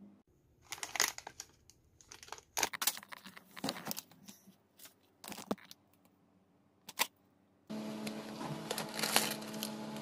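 Plastic food packets crinkling and rustling in a series of crackly bursts as they are handled and pulled off a shelf. Near the end a steady hum with hiss starts abruptly.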